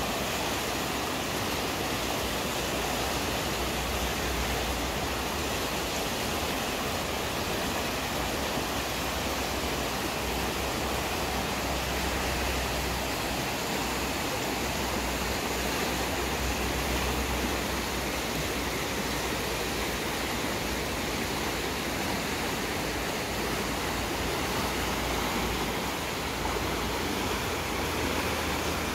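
Fast-flowing glacial river rushing steadily over rapids, a constant loud roar of churning whitewater.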